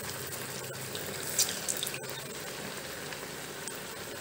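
Paneer pakodas deep-frying in hot oil in a kadai: a steady sizzle with scattered crackling, and one louder pop about a second and a half in.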